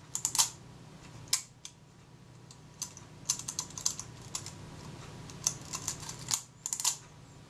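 The Kodak Retina IIIc's film advance lever being stroked and its leaf shutter cocking and firing: a series of small, sharp mechanical clicks in irregular clusters, over a faint low hum. The shutter fires, a sign that the advance-to-shutter-cocking timing is about right.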